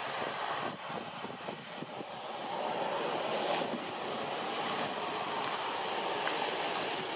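Steady rushing wind noise.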